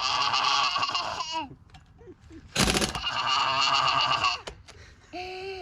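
Loud honking bird calls in two long runs of about a second and a half each, with a pause between, and a shorter, lower call near the end.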